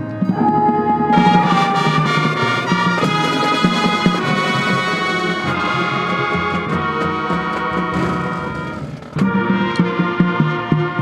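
High school marching band playing loud sustained brass chords over percussion hits. About nine seconds in the sound dips, then cuts abruptly to another loud brass passage.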